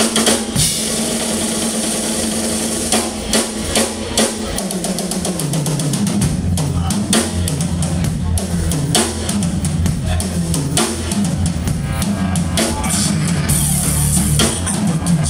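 Live rock band playing, led by a drum kit with bass drum and cymbal hits; low bass notes come in strongly about five seconds in.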